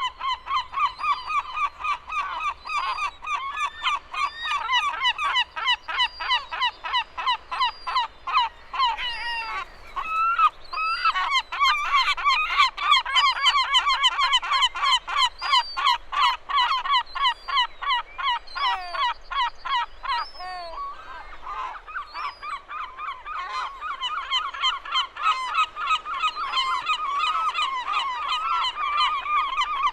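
A flock of gulls calling together: a dense chorus of short, rapidly repeated cries that overlap without pause, busiest about halfway through.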